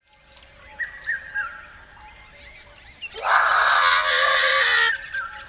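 A few short bird chirps, then about three seconds in a loud, drawn-out screech that sweeps up in pitch as it starts and lasts nearly two seconds.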